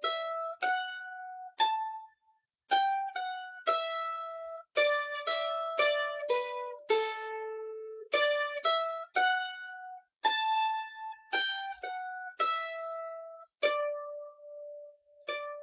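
Solo mandolin playing a slow, steady old-time fiddle-tune melody, each plucked note ringing out and fading before the next.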